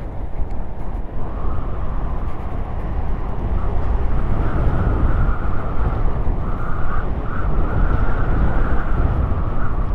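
Wind buffeting the microphone and tyres rolling on asphalt as a Trottibike scooter runs fast along a paved lane. A higher, wavering whine comes in about a second in, and the rush grows louder.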